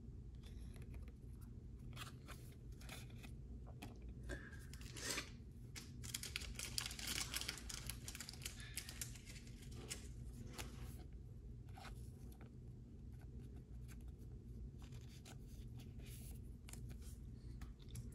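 Faint handling of trading cards: cards slid and shuffled against one another, with scattered light clicks and short papery rustles.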